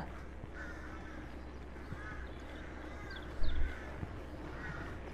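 Crows cawing, several short calls spaced a second or so apart, with a brief low rumble about three and a half seconds in.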